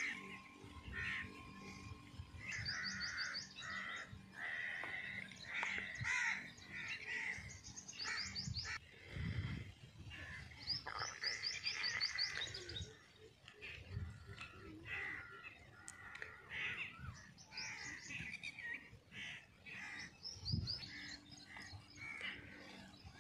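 Birds calling across open farmland: several bouts of rapid, high chirping trills and many shorter calls, with crows cawing. Two low bumps, one about halfway and a louder one near the end, sound over the birds.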